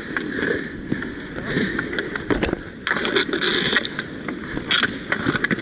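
Inline skate wheels rolling and scraping on a rink surface in roller hockey play, with a few sharp knocks.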